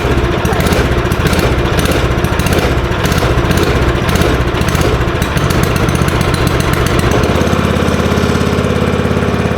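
Small single-cylinder engine of a ZR120 kids' snowmobile running on choke just after being started with a freshly cleaned carburetor. It runs unevenly at first, then settles into a steadier, lower idle about seven seconds in.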